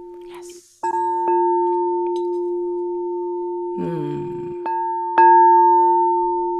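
Singing bowl struck four times, in two pairs about half a second apart, each strike renewing a steady ring of a low tone with a higher one above it.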